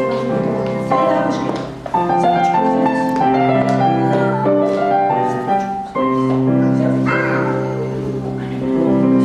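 Piano playing a melody with accompanying chords.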